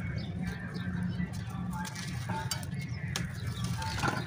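Dry clay chunks crushed and crumbled by hand, with soft crunches and a few sharp clicks of breaking grit. Birds call in the background over a low steady hum.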